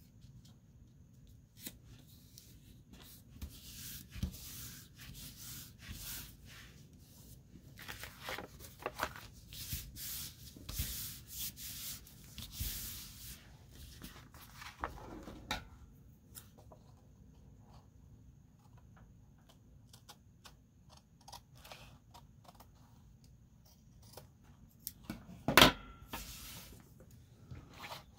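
Paper rustling and sliding as sheets of collage paper are handled and shuffled on a wooden tabletop, on and off for the first half. A single sharp knock near the end is the loudest sound.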